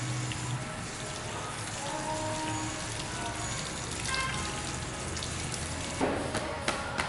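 Water spraying steadily from a handheld shower head onto wet hair in a shampoo basin. Near the end the spray gives way to a few sharp pats or slaps.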